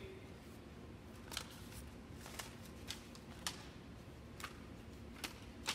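Paper plates being gathered up off a hardwood gym floor, with footsteps: about seven light, sharp taps at uneven intervals over faint room tone.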